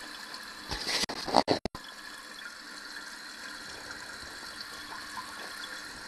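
Toilet tank refilling through its fill valve after a flush, with water running in as a steady hiss. A short clatter of knocks and clicks comes about a second and a half in.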